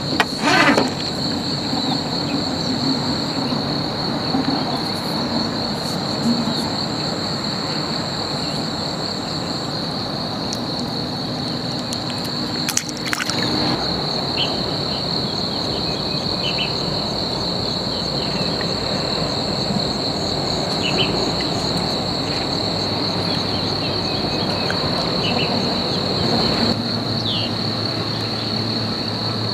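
Insects trilling steadily at a high pitch over a constant outdoor background hiss and rumble, with a few short bird chirps in the second half. There is a brief knock near the start and another about halfway.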